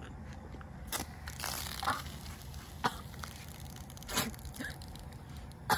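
Four or five short sputters and splashes about a second apart, as Coke foaming up from a Mentos is spat out and gushes from the bottle.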